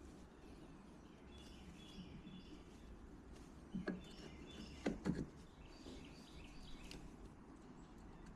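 Faint birds chirping in the background, with a few short knocks about four and five seconds in.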